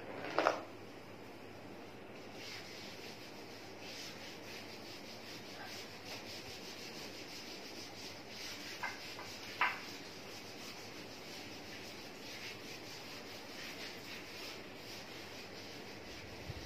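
Chalk writing being rubbed off a blackboard: a steady scrubbing of strokes back and forth. A short knock comes about half a second in, and two brief clicks come around nine to ten seconds in.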